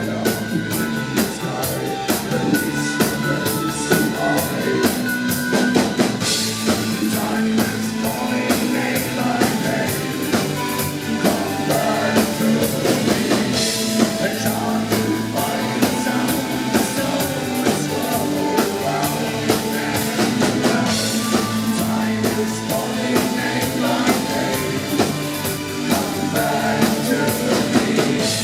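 A live band plays loudly, with two drummers keeping a steady beat under sustained held tones, and a sung vocal line in places.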